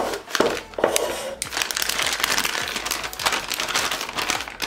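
Plastic piping bag crinkling and rustling as it is handled, with many small crackles packed close together.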